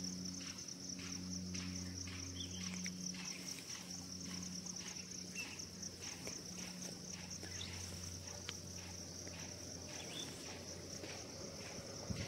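Steady high-pitched insect chirring, a constant rapidly pulsing drone, with a low steady hum underneath that fades in and out and faint scattered rustles.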